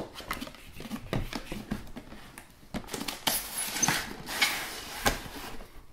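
Cardboard packaging handled by hand: the open flap of an outer retail box and an inner cardboard box scraping and sliding against each other, a run of small scratches and taps with a longer stretch of scraping in the middle.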